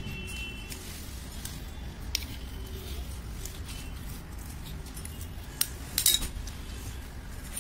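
Plastic spoon scraping and clicking against a hard floor as it stirs and spreads runny slime, with scattered clicks and the loudest cluster about six seconds in. A steady low hum runs underneath.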